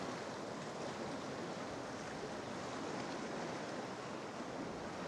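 Choppy sea washing and lapping around a kayak, a steady rush of water with waves breaking against nearby rocks.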